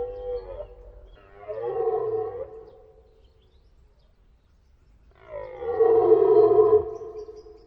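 Deer stag roaring in the rut: a call tailing off at the start, a shorter roar about a second in, then a longer, louder roar near the end.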